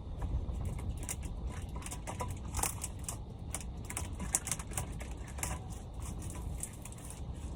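Irregular light clicking and rattling of small hard objects being handled, several clicks a second, over a steady low rumble.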